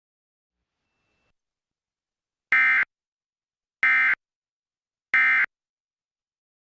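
Emergency Alert System end-of-message signal: three short, buzzy bursts of SAME data tones, each about a third of a second long and about a second apart, marking the end of the alert.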